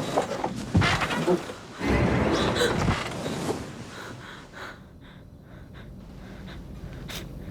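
A person gasping and breathing hard in loud, irregular bursts, then a quieter steady low hum from about four seconds in.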